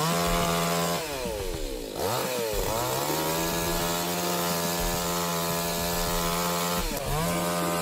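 Chainsaw running at high revs, the pitch dropping and climbing back as the throttle is eased off and opened again about a second in and once more near the end.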